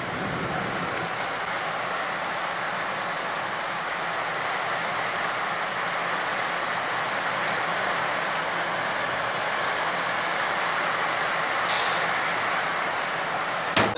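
A steady, even hiss with no tone or rhythm, with a single click near the end.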